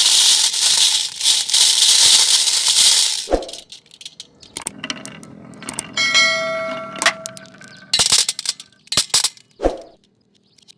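Marbles clattering down a wooden marble run: a dense rattle of many marbles for about three seconds, then scattered clacks and knocks. About six seconds in, a bell-like ring lasts about a second.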